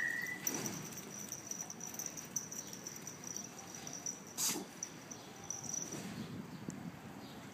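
Faint sounds of small dogs playing on a lawn, with a steady, high-pitched, pulsing whine in the background and a single sharp click about four and a half seconds in.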